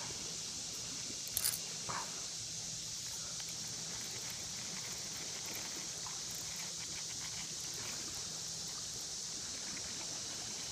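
Quiet outdoor background: a steady hiss with a faint low hum, broken by a brief click about a second and a half in.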